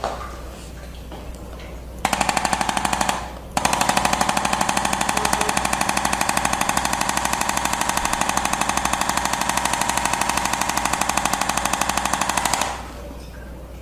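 Electric percussion massager hammering the back in rapid, even strokes, many a second. It runs for about a second, stops briefly, then restarts and runs steadily for about nine seconds before cutting off.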